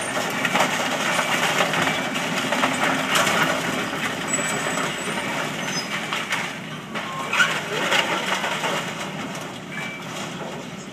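Demolition of a fire-damaged house: burned timber and debris crunching, cracking and breaking continuously as the structure is torn down.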